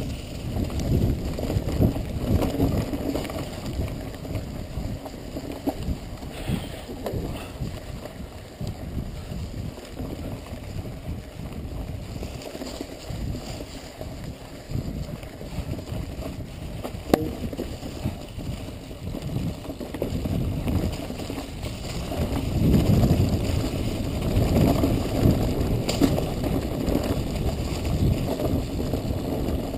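Mountain bike rattling and its tyres rumbling over a rocky, leaf-strewn dirt trail on a fast descent, with wind buffeting the microphone. A sharp click sounds about halfway through, and the ride gets louder and rougher for the last quarter.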